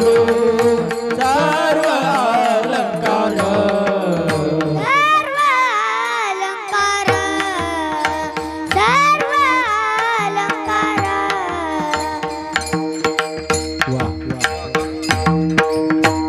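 Kirtan devotional music: a high voice sings long melismatic phrases without words over a steady harmonium drone. A drum and small hand cymbals keep a brisk rhythm.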